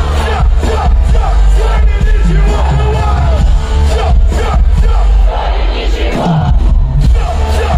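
Live hip-hop music over a loud festival PA: a heavy bass and steady beat with a melodic vocal line, and the crowd faintly audible.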